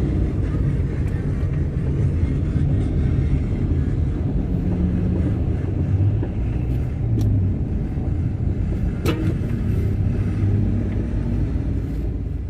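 Motor vehicle on the move: a steady low engine and road rumble with a wavering engine tone, and one sharp click about nine seconds in.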